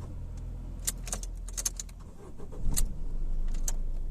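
Keys clicking and jangling in the ignition, then a Ford EcoSport engine starting about two and a half seconds in and running with a heavy low rumble. This is the vibration noise that persists despite new engine mounts, which the mechanic traces to a poorly seated intercooler.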